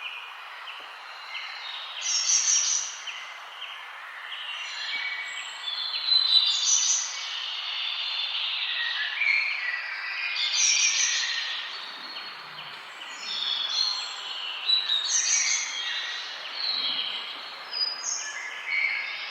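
Several wild birds chirping and singing at once in overlapping short calls and trills over a steady background hiss.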